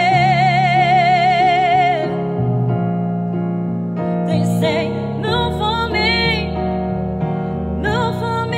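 Female singer with a piano-like keyboard backing track: she holds one long note with wide vibrato for about two seconds, stops for about two seconds while only the keys carry on, then sings ornamented phrases with quick runs up and down.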